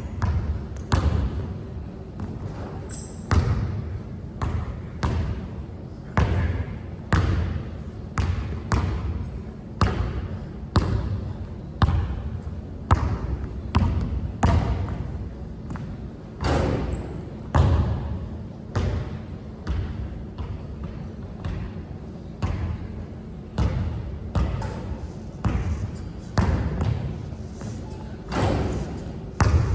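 Basketball dribbled hard against the court floor, a run of sharp bounces at an irregular pace of roughly one to two a second.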